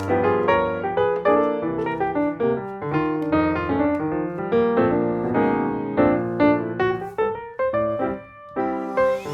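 Background piano music: a busy run of notes, with a short pause about eight seconds in.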